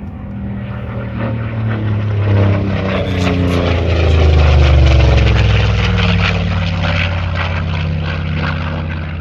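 The Yak-3U's 14-cylinder Pratt & Whitney R-2000 radial engine and propeller passing low overhead in a flypast. It grows louder to a peak about halfway through, and the engine note drops in pitch as the aircraft goes by, then fades a little.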